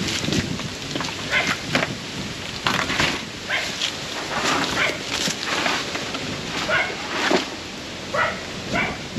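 A dog barking repeatedly, a string of short, irregular barks.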